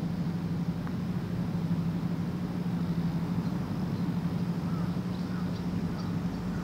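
Open-air ambience under a steady low hum, with a faint click of a putter striking a golf ball under a second in and a few faint high chirps near the end.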